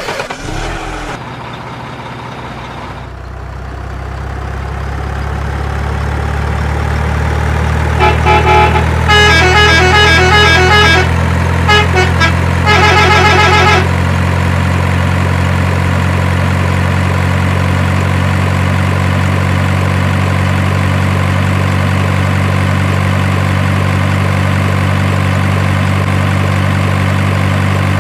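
Heavy truck engine sound effect coming up and settling into a steady low idle, with a truck horn honking in a run of short and longer honks from about eight to fourteen seconds in.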